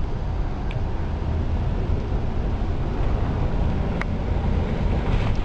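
Steady low rumble of a car driving, engine and road noise heard from inside, with a faint click about four seconds in.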